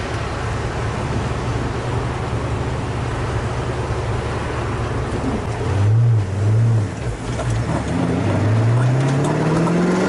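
1967 Ford Fairlane GT's V8 engine running at a steady cruise. About six seconds in the engine note swells twice in quick succession and dips, then climbs steadily in pitch as the engine revs up under acceleration.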